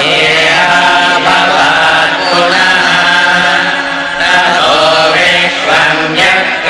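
Chanting sung in a slow melody over a steady low drone, the vocal line gliding up and down.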